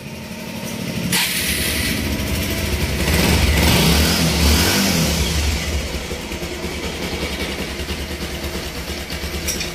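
Bajaj Pulsar 180's single-cylinder four-stroke engine starting: it catches about a second in, revs up, then settles into a steady idle. The engine has just been rebuilt with a new clutch assembly and cleaned valves and oil pump, and the mechanic says the rebuild has cured its rattle and vibration.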